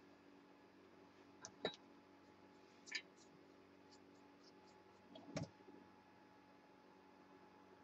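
Near silence over a faint steady hum, broken by three short clicks, about a second and a half in, three seconds in and five seconds in, as small objects are handled.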